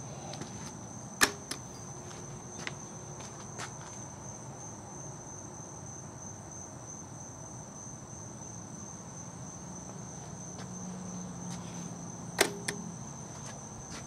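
Insects trilling in a steady high, unbroken tone over the low, quiet whir of a Panasonic F-1208 12-inch table fan running on low speed. Two sharp clicks, about a second in and near the end.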